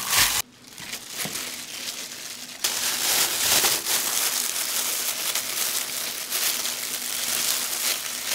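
Clear disposable plastic gloves crinkling and rustling as gloved hands squeeze and rub herb butter over a raw whole chicken. It drops away suddenly just under half a second in and is quieter for about two seconds, then the crinkling comes back louder and runs steadily on.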